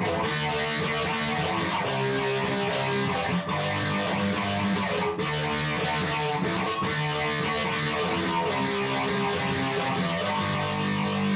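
Guitar-led intro music.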